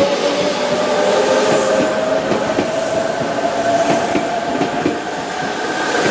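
Electric train pulling out of a station platform: its traction motors whine with a pitch that slowly rises as it gathers speed. Wheels click over rail joints beneath the whine.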